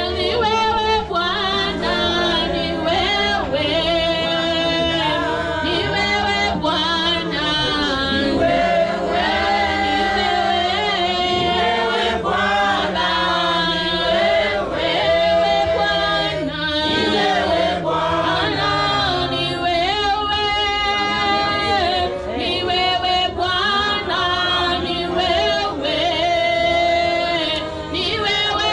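A church praise-and-worship choir singing a gospel worship song together, many voices in chorus over steady low notes.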